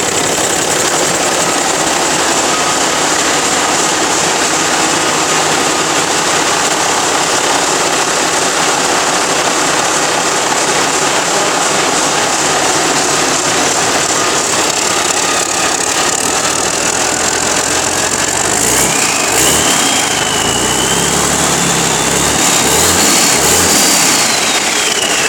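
Bare diesel engine on a test stand, running steadily. About three-quarters of the way through it revs up with a whine that rises in pitch, then falls away near the end.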